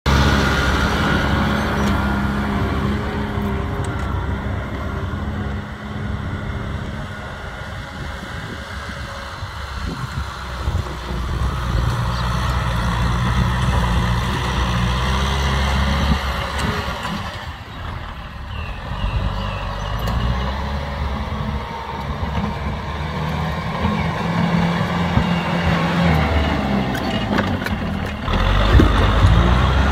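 Kubota M6040 tractor's four-cylinder diesel engine running steadily under load as it drives a rotary tiller through the soil. The engine note rises and falls a little, and the sound gets louder near the end as the tiller passes close.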